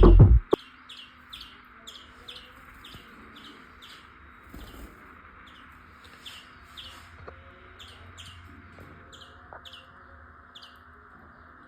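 Loud music cuts off about half a second in. After that a small finch chirps in short, evenly repeated calls, about two a second, over a steady background hiss.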